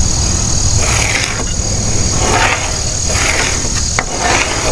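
A steady, high-pitched chorus of crickets, with a few short scratching strokes of a pencil marking a line on a rough walnut slab.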